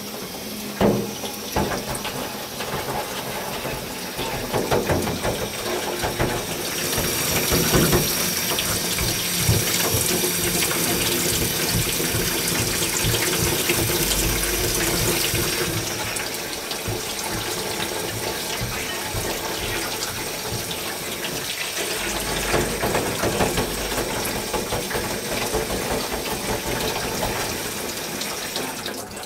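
Kitchen tap running steadily into a stainless-steel sink, with a few short clatters of things being handled in the sink.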